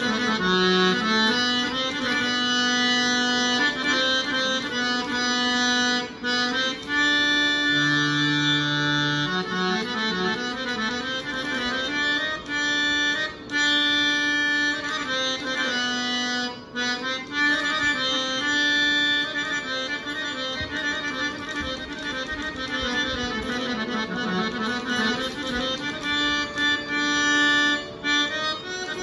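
Harmonium playing a Carnatic melody in raga Malayamarutam, moving in steps between held reedy notes.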